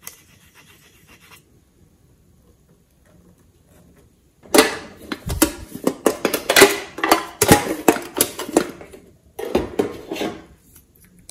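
Clattering and clicking from a hard tiger-shaped container being handled. It starts about four seconds in as a dense run of clicks and rattles lasting about four seconds, and a shorter burst follows near the end.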